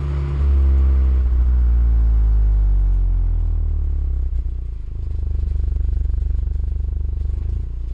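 Audi S1's turbocharged 2.0-litre four-cylinder heard close at the tailpipes while driving. The engine note falls steadily as the revs drop over the first four seconds or so, then settles into a low, fast-pulsing rumble at low revs.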